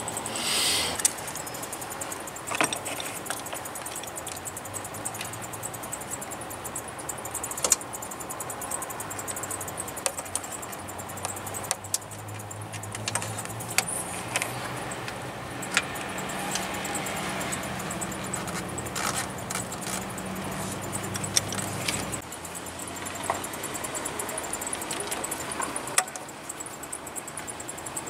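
Hand tools and metal parts clinking and clicking while a replacement vacuum pump is fitted and its bolts are turned with a wrench. A low steady hum sits underneath from about ten seconds in and stops suddenly about twenty-two seconds in.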